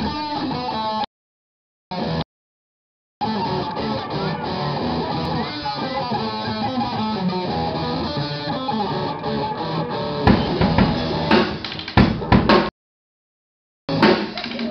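Electric guitar played live through an amplifier, a fast run of notes; about ten seconds in a drum kit comes in with loud, sharp hits. The sound cuts out completely three times, briefly.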